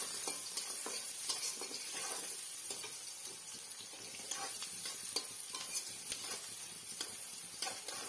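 Chopped onion sizzling in hot oil in an aluminium kadai, being fried down toward brown, while a metal spatula stirs it, scraping and tapping against the pan many times.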